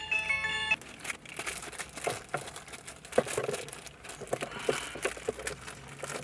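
Clear plastic bag crinkling and crackling irregularly as a new engine control module is pulled out of it and handled. A brief electronic chime of a few stepped tones sounds at the very start.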